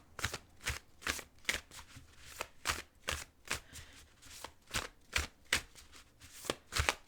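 A deck of cards being shuffled by hand: a steady run of short, soft card slaps, about three a second.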